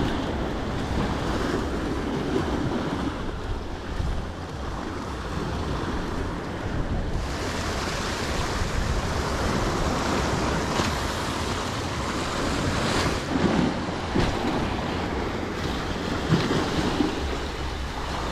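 Sea surf breaking and washing against the rocks, with wind buffeting the microphone.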